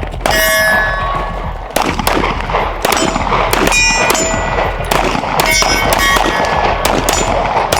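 A rapid, irregular string of shots, several of them followed by the clear ringing clang of struck steel targets.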